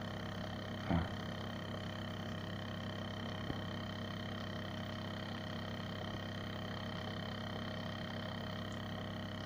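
Homemade flame-heated resonant air engine running, its diaphragm oscillating back and forth with a steady, even hum. A single brief knock about a second in.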